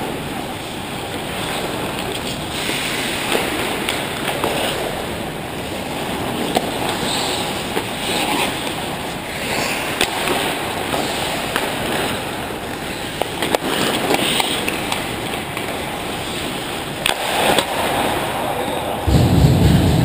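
Ice hockey play on the rink: skates scraping and carving the ice, with a few sharp clacks of sticks or puck, and a heavier low rumble near the end.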